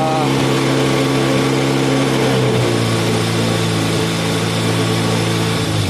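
Yamaha XJ600 air-cooled inline-four engine idling steadily while it warms up. Its speed dips slightly about halfway through.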